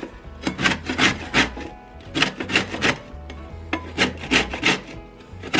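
Orange peel being grated on a stainless steel box grater: quick rasping strokes, about three or four a second, in runs broken by short pauses.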